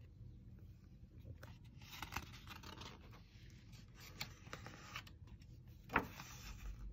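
Faint rustling and scraping of a hardcover picture book's paper pages being turned and handled, with one sharp tap about six seconds in.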